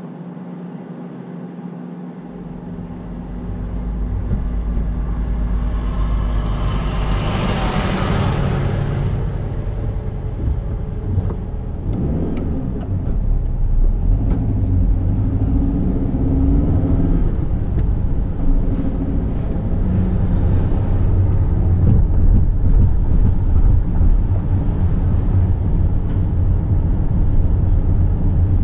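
Car engine and road rumble heard from inside the cabin as the car pulls away and drives on, getting louder over the first few seconds, with the engine note rising and falling as speed changes. A swelling whoosh about eight seconds in.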